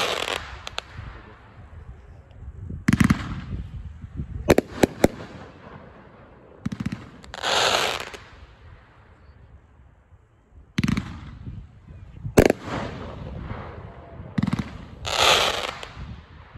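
Fusion Core consumer fireworks cake firing: sharp launch reports and bangs come in small clusters every second or two. Several times a crackling rush lasting about a second follows, as the glittering breaks open.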